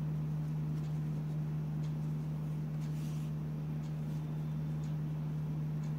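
A steady low hum, with a few faint light ticks from knitting needles working yarn.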